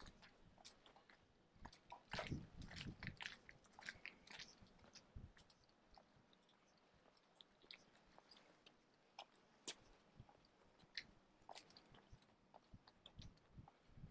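Faint, scattered crunching clicks of footsteps on a gritty paved lane, briefly louder about two to three seconds in.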